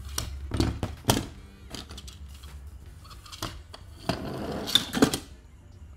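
A small plastic-and-metal toy truck being handled and pushed along. There are a few sharp knocks in the first second, then about a second of rolling and scraping from its wheels starting about four seconds in.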